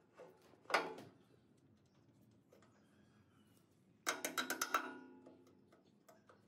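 Metal-on-metal clanks with a short ringing tail as a cast-iron wheel is worked onto its steel axle. There is one sharp clank about a second in, then, past the middle, a quick run of about eight clicks and taps as pliers work at the pin in the wheel hub.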